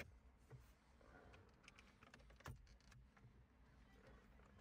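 Near silence with a few faint, scattered clicks of a hand on the plastic dash trim, the clearest about two and a half seconds in.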